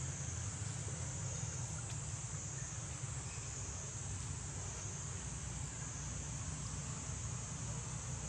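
Steady, high-pitched insect chorus droning without a break, over a low steady rumble.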